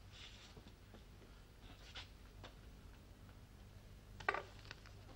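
Quiet room tone with a steady low hum and a few faint clicks; the loudest click comes about four seconds in.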